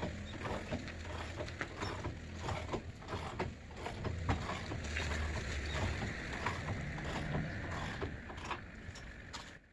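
Steady mechanical hum with scattered clicks and knocks from the truck camper's powered lifting jacks raising the camper off the truck bed, cutting off just before the end.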